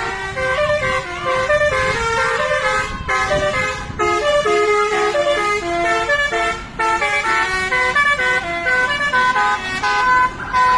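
Bus 'telolet basuri' multi-tone horn playing a quick melody of stepped notes, breaking off briefly a few times, over a low rumble.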